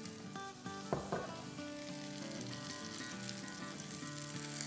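Oil sizzling and frying in a hot nonstick pan around the edge of a batter paratha, as the underside starts to fry. A single knock about a second in, with soft background music underneath.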